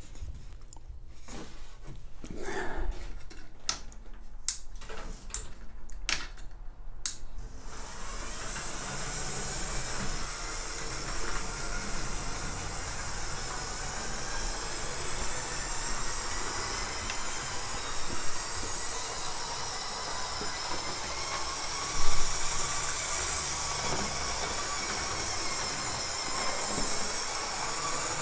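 Several sharp clicks and knocks as a model train is set out on the track, then a model locomotive running on a DC layout: a steady whirr of its electric motor and the wheels on the rails, with one louder knock near the end.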